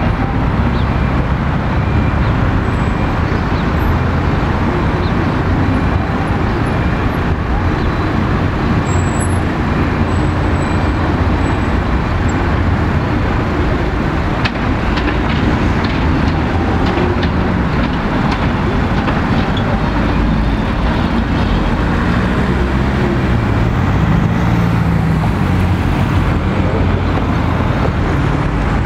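Steady city street traffic, with cars passing and a tram drawing near on its tracks, close by in the last few seconds.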